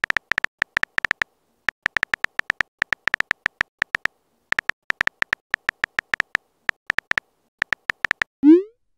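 Phone keyboard key-tap clicks in quick irregular runs with short pauses as a text message is typed. Near the end comes a short rising blip, the message-sent sound effect.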